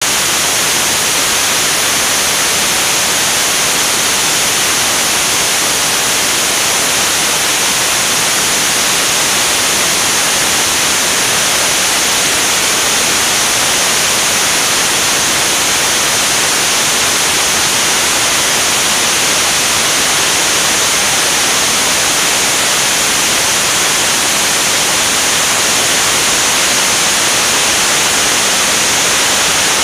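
Steady, loud rush of airflow over a camera mounted on an aircraft wing in flight, an even hiss with no change throughout.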